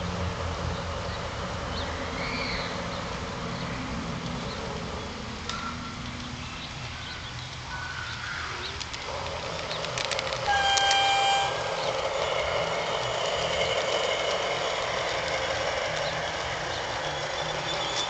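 Electronic horn of an LGB garden-scale diesel locomotive, sounding once for about a second, about ten seconds in. It rises over the steady running noise of the moving model train.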